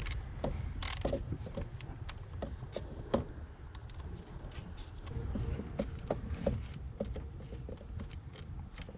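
Irregular light clicks and taps of hand tools, a 7mm socket and ratchet, working the ignition coil's hold-down bolt on the engine, over a low rumble.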